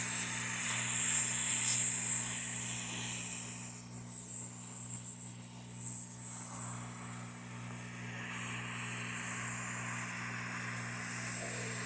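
Hot air gun blowing a steady rush of hot air onto a laptop heatsink to warm it, so the heatsink and its thermal pads come loose without bending. The hiss shifts and drops a little about four seconds in, over a steady low hum.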